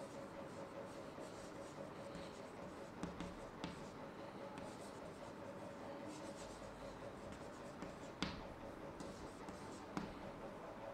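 Chalk writing on a chalkboard: faint scratching strokes with a few sharper taps of the chalk against the board.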